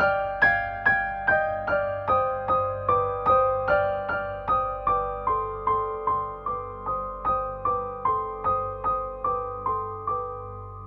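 Background music: a gentle keyboard melody of evenly spaced single notes, about two to three a second, each note dying away, stepping slowly lower in pitch.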